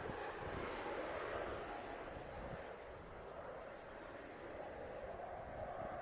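Distant jet noise of a Mitsubishi F-2 fighter's F110 engine fading away, with wind buffeting the microphone. Faint short high chirps repeat about once a second over it.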